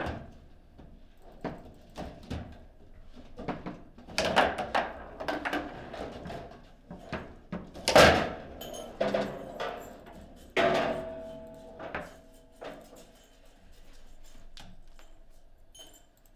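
Table football play: the ball clacking off the plastic figures and table walls, with sharp knocks of hard shots and rods banging against the table, irregular and fast; a goal is scored during the run of play.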